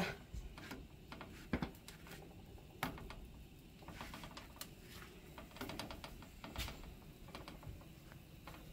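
Light, scattered taps and clicks of fingers touching and shifting masa gorditas on a metal griddle.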